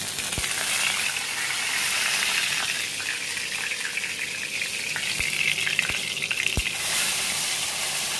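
Cumin seeds and a bay leaf frying in hot oil in a kadai, giving a steady sizzle that comes in suddenly and swells briefly near the end. A few light knocks of a utensil against the pan.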